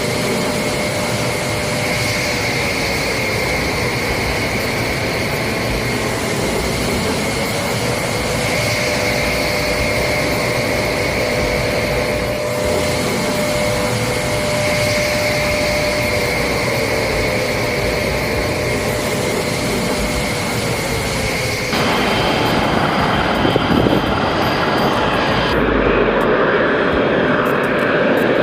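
Steady aircraft engine noise with a constant high whine and slowly sliding lower tones; the sound changes abruptly about 22 seconds in and again near 26 seconds.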